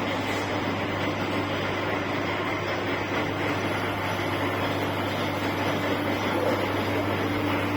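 DIP-300 universal screw-cutting lathe running steadily, a constant mechanical hum that does not change.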